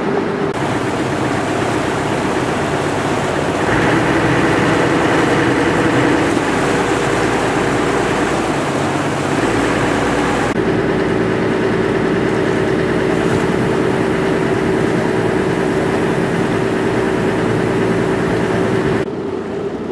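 Water taxi's engine running steadily under way, a low droning note over a rush of wind and water; the note shifts a couple of times.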